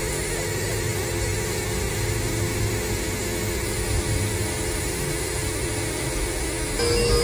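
Electronic noise music: a dense, steady, machine-like drone with rumble and hiss. Near the end a held tone enters and it gets louder.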